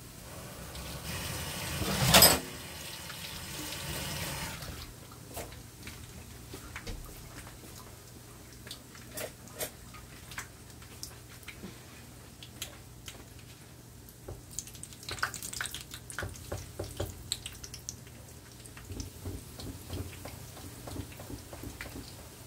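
Egg-battered rellenos frying in hot oil in a skillet: a louder stretch of sizzling in the first few seconds, then a low steady sizzle with scattered crackles and pops of spattering oil, busier near the end.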